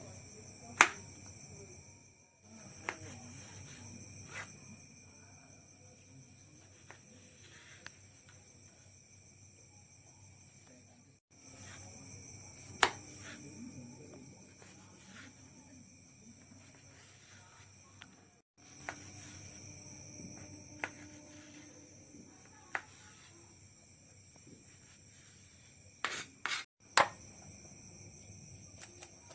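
Steady high-pitched chirring of insects, like crickets, with a few sharp clinks of kitchen utensils against cookware. The sound cuts out abruptly several times.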